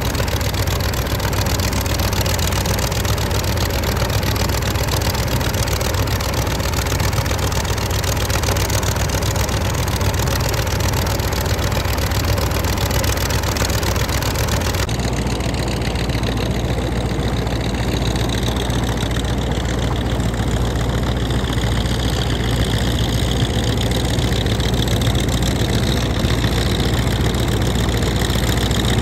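Hino V8 F20C diesel engine of a puddling tractor running steadily. Its tone changes abruptly about halfway through.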